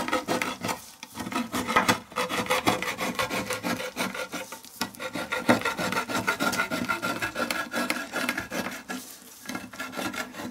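Hand-held lever can opener cutting around the rim of a lacquered tin can lid: a fast run of rasping metal-on-metal strokes with a few brief pauses.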